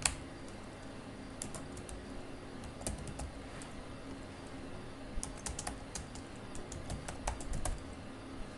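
Typing on a computer keyboard: short clusters of key clicks with pauses between them, over a faint steady low hum.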